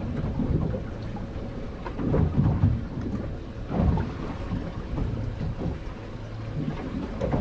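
Wind buffeting the microphone in gusts, a low rumble that swells about two seconds in and again near four seconds.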